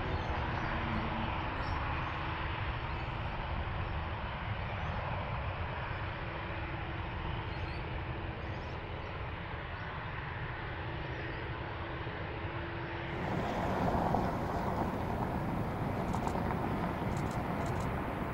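Jet airliner engines running as a steady, noisy rumble during a Boeing 787-9's takeoff. About thirteen seconds in, the sound switches abruptly to a louder, brighter jet noise from a Boeing 777-300ER's GE90 engines on its takeoff.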